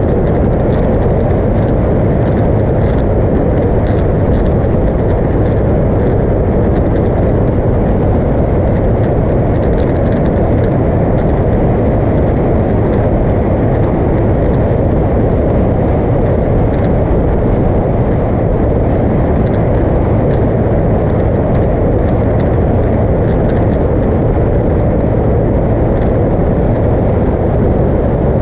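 Motorcycle riding at a steady cruising speed: an unchanging rush of wind over the bike-mounted microphone, with the engine running evenly underneath.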